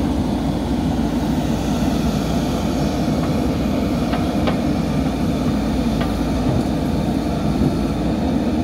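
JCB backhoe loader's diesel engine running steadily as the backhoe arm works, with a few faint clicks partway through.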